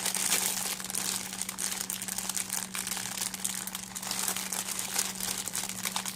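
Crinkling of a plastic wrapper and soft tearing as a chocolate-chip soboro bun is pulled in half by hand, a steady crackle of small clicks, over a constant low electrical hum.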